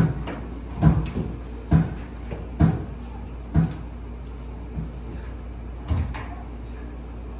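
Someone banging on a door: a row of dull thumps about once a second, spacing out and weakening near the end.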